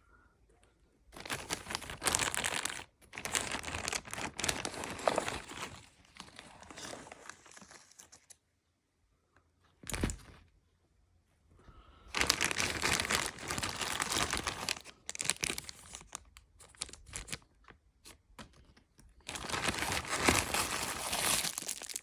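Packaging being torn and crumpled by hand as a mystery box is unpacked, in four rustling spells of a few seconds each, with a single thump about ten seconds in.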